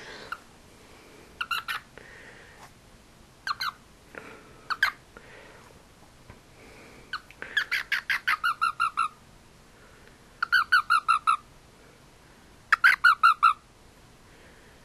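Frog held in the hand calling: a few short chirps, then three quick trains of rapid squawking pulses, about seven a second, each lasting about a second, in the second half.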